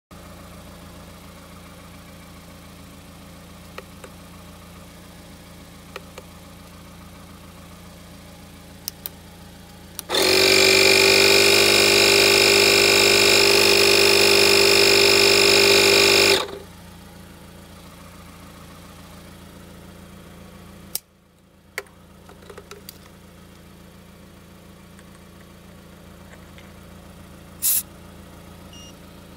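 TEROMAS portable tire inflator's electric compressor running for about six seconds, a loud steady hum rich in overtones, then shutting off. Under it a quieter steady hum continues, with a few light clicks and a brief burst near the end.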